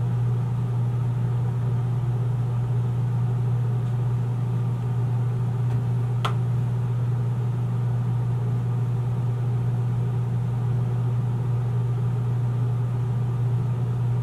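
Steady low droning hum in the background, with a single short click about six seconds in.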